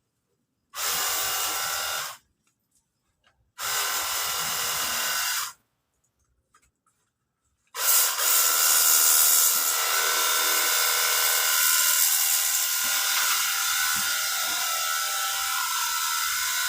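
Cordless battery pressure washer running and spraying water, a steady motor whine with hiss: two short squeezes of about a second and a half each, then running continuously from about eight seconds in.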